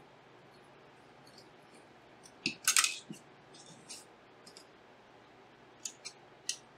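Small clicks and taps of plastic and metal parts being handled while an ASUS RTX 3080 Strix graphics card is taken apart, with a louder cluster of clicks and rattles about two and a half seconds in and a few light ticks near the end.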